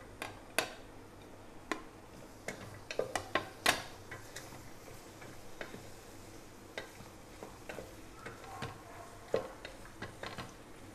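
Wooden spoon stirring vegetables in an aluminium pressure cooker, with irregular light knocks and scrapes against the pot, the loudest a cluster about three to four seconds in.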